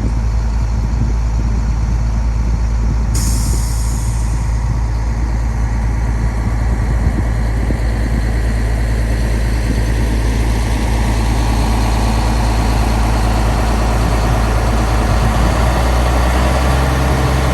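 Heavy diesel truck engine running steadily at constant speed, a deep continuous drone.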